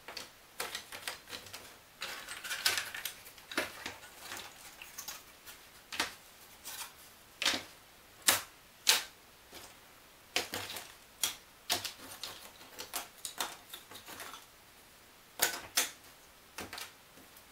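Thin laser-cut wooden kit pieces clicking and clattering irregularly as they are picked up and set down on a paper-covered table, with a short rustle about two seconds in.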